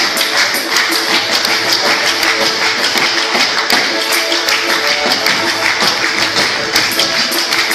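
Lively Russian folk dance music, dense with many quick sharp taps that fit dancers' heel stamps and taps on the stage.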